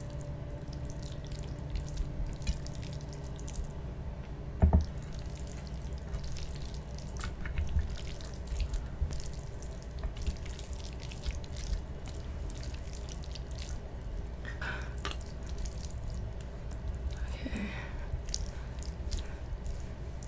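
Spaghetti in tomato sauce being tossed and lifted with a metal fork and a wooden spoon on a plate: soft wet, dripping squelches of noodles and sauce with scattered light clicks of the utensils, and one louder knock about five seconds in, over a steady low hum.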